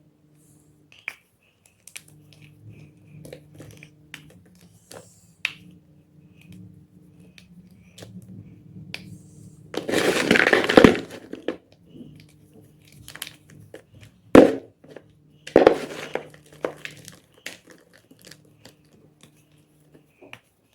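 Gym chalk (magnesium carbonate block) being crushed and crumbled: scattered small crackles, a loud stretch of crunching about ten seconds in, then two sharp cracks a little later.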